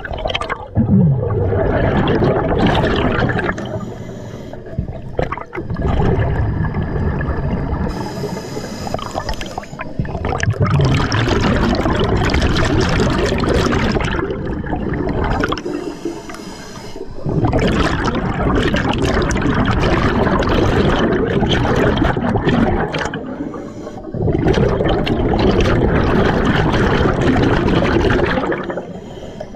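Diver breathing through an Atomic scuba regulator, heard underwater: about five long exhalations, each a burbling rush of bubbles lasting several seconds, with short quieter breaks between them for each inhale, some with a faint hiss.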